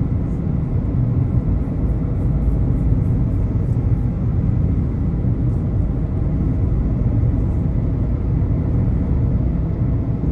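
Car driving at a steady speed, heard from inside the cabin: a constant low rumble of tyre, road and engine noise.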